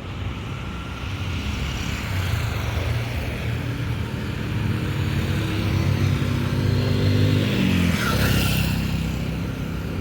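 A motor vehicle engine running on the street, growing louder, then its pitch drops about eight seconds in.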